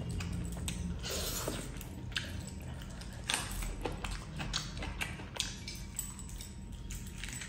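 Close-up wet chewing and lip-smacking of someone eating by hand, with irregular soft squelches as rice and curry gravy are mashed together in the fingers.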